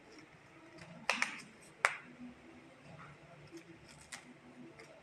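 Crisp snapping clicks as florets are plucked by hand off a raw banana flower: a quick cluster about a second in, one sharp snap just before two seconds, and a few lighter ones around four seconds.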